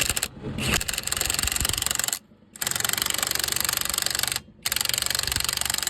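Impact wrench hammering in fast rattling bursts, three runs with short pauses, as it tightens a car's wheel nuts.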